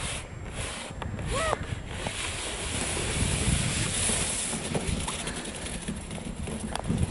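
Snowboard sliding down a snowy slope: a steady scraping hiss of the board's base over the snow, with wind buffeting the microphone. A short knock near the end.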